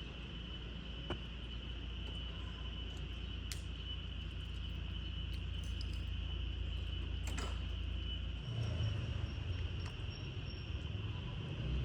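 Steady, high-pitched insect chirring over a low background rumble; the rumble shifts and swells about two-thirds of the way in.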